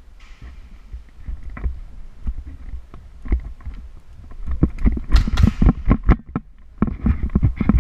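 Indoor airsoft game action: a run of short, sharp knocks and thumps, scattered at first and then coming fast and loud from about halfway through.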